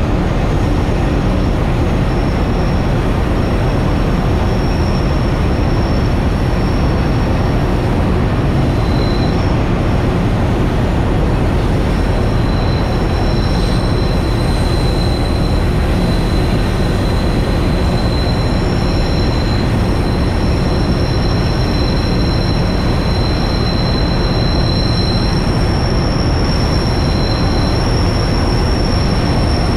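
Multiple C-class diesel-electric locomotives working a coal train, heard close up from the side of a locomotive: a steady, loud rumble of engines and wheels on rail. Thin, high wheel squeal rings over it as the train rounds curves, with a second squeal tone joining about nine seconds in and dropping out near the end.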